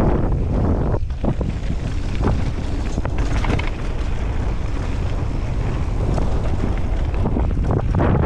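Wind buffeting a helmet-mounted camera's microphone during a fast mountain-bike descent on a dirt trail, a steady low rumble with tyre noise and scattered short knocks and rattles from the bike over bumps.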